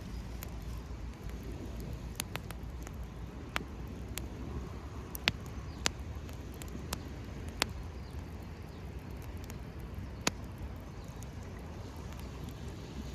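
Wood campfire crackling, with sharp irregular pops, the loudest about five, six and ten seconds in, over a steady low rumble.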